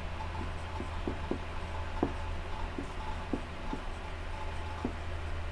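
Marker pen writing on a whiteboard: scattered light ticks and taps as the strokes are made, over a steady low hum.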